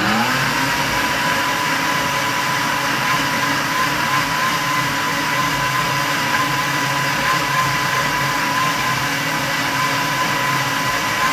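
Countertop blender motor running at full speed, blending a carrot, apple, celery and lemon mix for juice: it spins up right at the start and holds a loud, steady whine. These are the last few seconds of blending to break up the remaining chunks.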